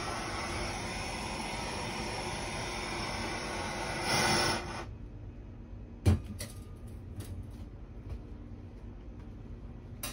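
Handheld propane torch on a blue propane cylinder burning with a steady hissing rush, which swells louder about four seconds in and cuts off abruptly as the torch is shut off. About a second later comes one sharp knock as the torch and cylinder are set down on the steel work table, followed by a few light clicks.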